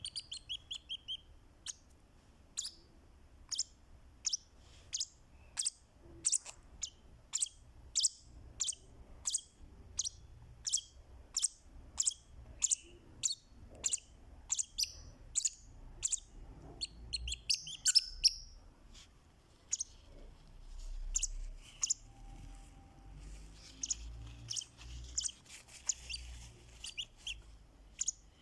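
Fischer's lovebird making short, sharp, high chirps, about two a second. There is a louder call a little past halfway and denser chattering near the end.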